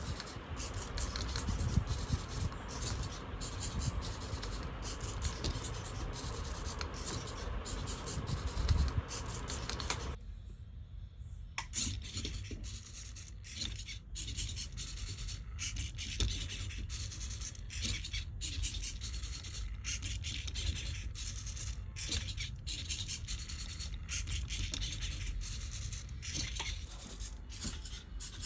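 Small hobby servo motors in a six-servo biped walking robot's hips, knees and ankles working the legs: a scratchy, chattering gear noise full of rapid clicks. It cuts out briefly about ten seconds in, then resumes.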